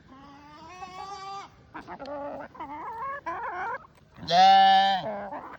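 Goats bleating, with chickens clucking in between. The loudest is one long, steady bleat about four seconds in.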